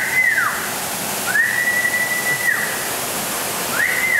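A person whistling three times: clear, level notes that swoop up and down, a recall whistle calling a trained bird in to land on an outstretched hand. Under it runs a steady hiss.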